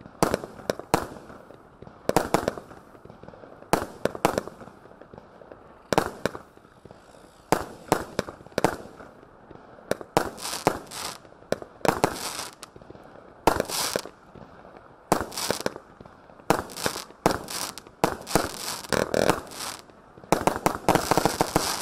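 Phantom Category 3 firework cake firing: a run of sharp bangs, often in quick clusters, about once a second, with shots launching and bursting. Near the end the reports crowd into dense crackling, the cake's dragon egg finale.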